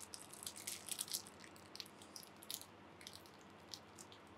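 Faint crinkling and small clicks of plastic shrink-wrap being picked at and handled on a sealed deck of game cards, thickest in the first three seconds and thinning out after.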